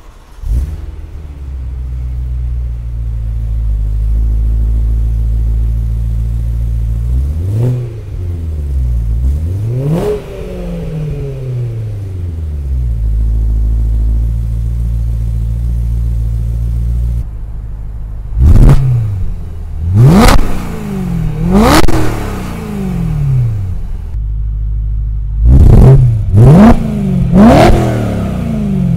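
BMW E90 M3's V8 starting and idling through a Dinan axle-back exhaust, blipped twice, which the owner describes as a much deeper tone but not louder. After a cut, the same engine is revved sharply several times through the stock exhaust, in two sets of about three blips.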